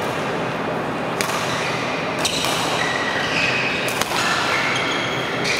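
Badminton rally: racket strings hitting a shuttlecock four times, about a second to a second and a half apart, each a sharp crack in a large sports hall.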